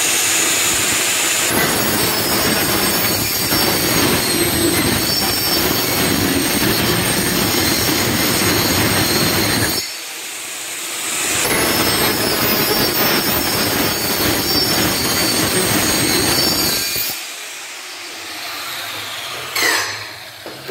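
Handheld electric power tool cutting along the edge of a warped wooden slat to trim off its bulge, running with a steady high whine. It stops about ten seconds in, starts again a second and a half later and runs until shortly before the end, followed by a single knock.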